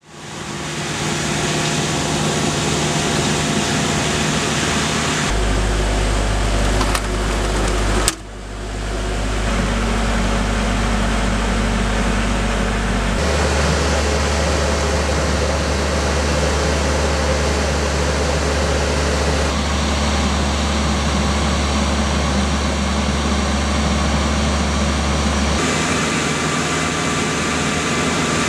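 Steady mechanical running noise from the Hammelmann DockBoy water-blasting machine, a hum under hiss. The low hum shifts pitch every few seconds, with a sharp click about eight seconds in.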